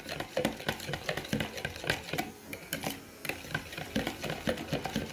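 Metal spoon beating egg, sugar and melted butter in a bowl, clicking quickly and irregularly against the bowl's sides, several taps a second.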